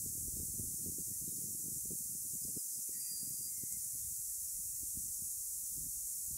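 Steady high-pitched hiss over a low, uneven rumble of outdoor background noise, with a faint short chirp about three seconds in.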